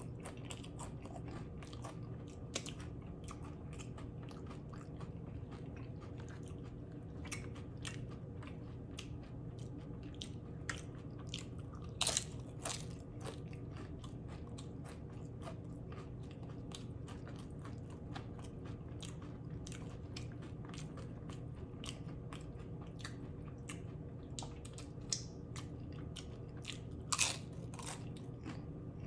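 Close-up chewing and crunching of loaded nachos, crisp tortilla chips crackling between the teeth in many small crunches, with louder bites about twelve seconds in and again near the end.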